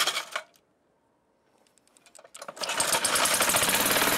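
Small single-cylinder air-cooled engine running briefly and stopping, then near silence for about two seconds, then the engine starting up again about two and a half seconds in and settling into a loud, steady, fast run.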